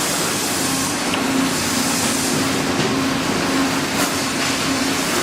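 Sawmill log infeed conveyor machinery running: a steady rushing mechanical noise with a steady low hum underneath.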